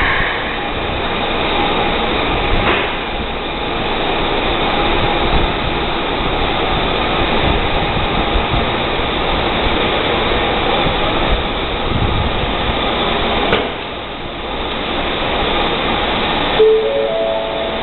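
Keikyu 600-series electric train pulling out of an underground station, with steady loud running noise and a few faint steady tones. Near the end a short run of tones steps upward.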